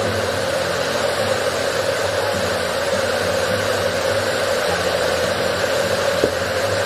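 A steady hissing rush with a low hum under it.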